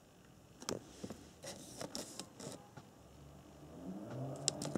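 Printed paper sheet rustling and crackling as it is handled, with a string of short, sharp clicks, the sharpest near the end. A low steady hum comes in near the end.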